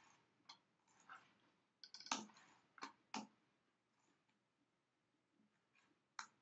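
Faint, scattered clicks of computer keyboard keys and a mouse, a few single strokes and a quick cluster about two seconds in, then a quiet stretch before one more click near the end.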